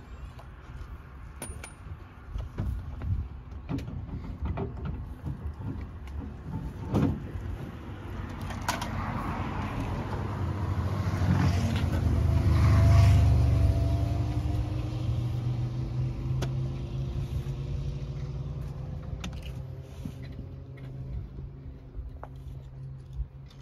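A motor vehicle passes close by: its engine and tyres swell to a peak about halfway through, then fade with a falling pitch. Before it, scattered knocks and clanks come from a rally car's wheel being changed by hand.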